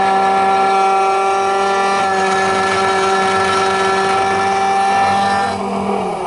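SEC-E9 key cutting machine's cutter spindle running with a steady whine while milling an HU92 key blank, then spinning down in the last second or so as the cut finishes.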